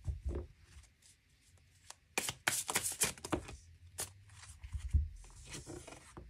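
Tarot cards being handled and shuffled on a cloth-covered table: a quick run of card flicks and snaps about two seconds in, with taps, slides and soft thumps as the deck is split into piles and set down.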